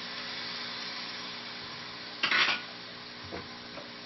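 Water and sweet potato tops simmering and sizzling in a hot wok, a steady hiss. About two seconds in there is a short, louder clatter, then a couple of light knocks.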